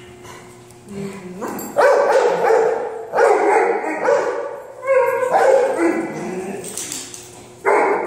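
A dog barking loudly and repeatedly in long, drawn-out barks, starting about two seconds in.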